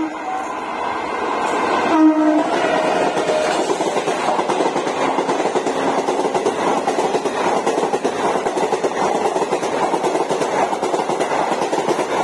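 WAP-4 electric locomotive's air horn gives a short blast about two seconds in as the train closes in. It is followed by the steady rush and rattle of its passenger coaches speeding past.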